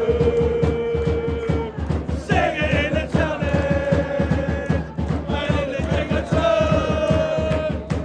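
Music with a voice singing long, held notes over a fast, steady drumbeat.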